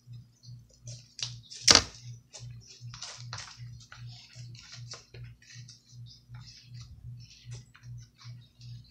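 Slime mixed with kinetic rock being squeezed and worked by hand, giving irregular crackling and clicking, with one sharp, louder pop just under two seconds in.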